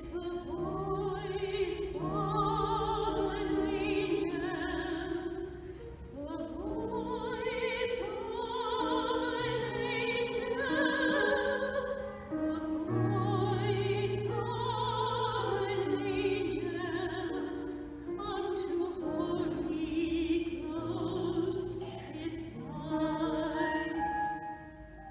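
Classical singing with a wavering vibrato, in the style of opera, over a sustained instrumental accompaniment with long held low notes.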